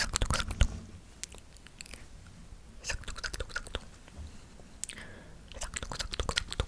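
Close-miked ASMR mouth sounds: wet clicks and smacks of the lips and tongue, in three short clusters about two and a half seconds apart.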